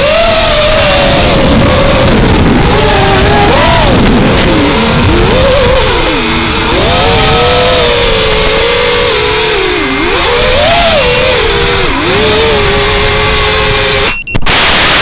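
FPV quadcopter's brushless motors (Emax 2206 on a Fossil Gravity 250) whining over a heavy rush of wind and propeller noise, their pitch repeatedly rising and falling with the throttle. The sound drops out for a moment near the end.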